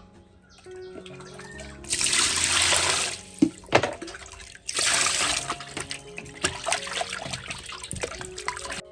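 Water splashing or pouring in two bursts of about a second each, with a few light knocks between, over soft background music.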